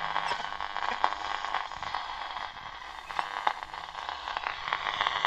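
Roberts R600 portable radio on medium wave giving out a steady hiss of static with scattered crackles and clicks, as the dial is tuned between stations.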